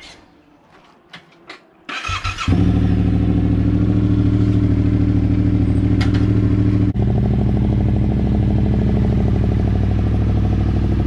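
Yamaha Ténéré 700's parallel-twin engine cranked on the electric starter about two seconds in, catching almost at once and then idling steadily through a Camel ADV high-mount aftermarket exhaust. A couple of small clicks come just before the start.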